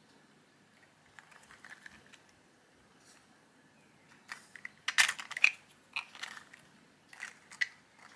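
Small hard plastic clicks and clacks as 3D-printed figures are handled and their jointed limbs are moved. A few light clicks come first, then a dense loud cluster about five seconds in, then scattered clicks near the end.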